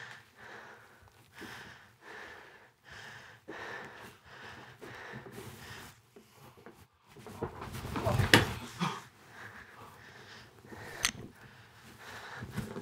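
A man breathing heavily and raggedly after a struggle, with soft breaths about once a second. About eight seconds in comes a louder gasp with voice in it, and a single sharp click follows near the end.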